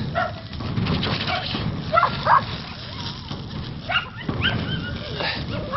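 Puppies whimpering and yelping from inside a tied woven plastic sack, a series of short high-pitched cries every second or so.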